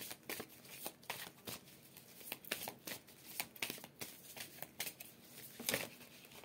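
Large oracle cards, the Sacred Traveler deck, being shuffled by hand: a run of quick, irregular card flicks and slaps.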